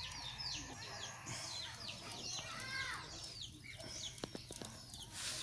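Chickens peeping and chirping: short high-pitched calls repeated several times a second, with a few faint clicks about four seconds in.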